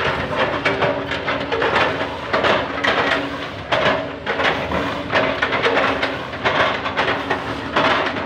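Hydraulic excavators working: engines running under load, with irregular crunching surges as old oil palm trunks are chipped.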